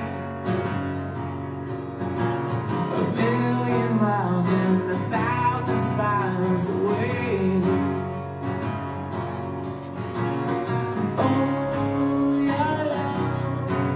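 Live solo song: a man singing over a strummed guitar, with sung lines about a third of the way in and again near the end.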